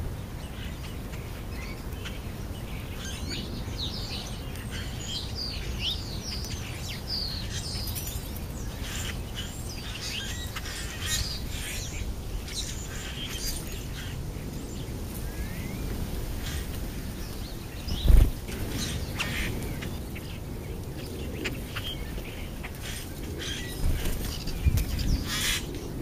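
Songbirds chirping and calling on and off over a low steady rumble, with one sharp thump about two-thirds of the way through. Near the end, wingbeats and rustling as common grackles fly in and land.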